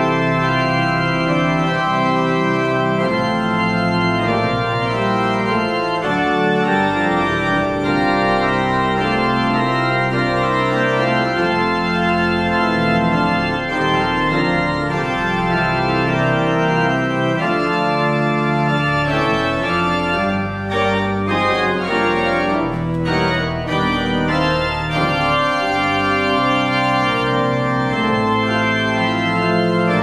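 Pipe organ playing sustained chords that change every second or two.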